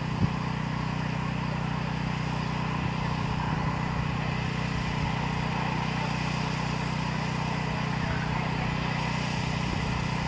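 A small engine running at a steady speed, with one sharp click a quarter second in.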